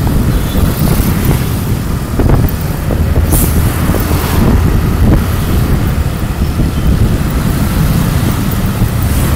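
Traffic noise heard from a moving motorbike in dense city traffic: a steady low rumble of engines, with scooters and a bus passing close by and a brief hiss about three seconds in.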